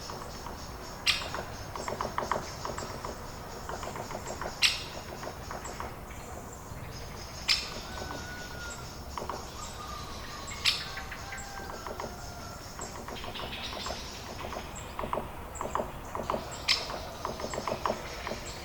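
Birds chirping in quick runs of short notes, with five sharp clicks or taps a few seconds apart standing out as the loudest sounds.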